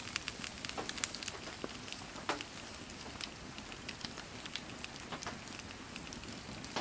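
Wood campfire crackling, with irregular sharp pops several times a second over a steady hiss of light rain falling.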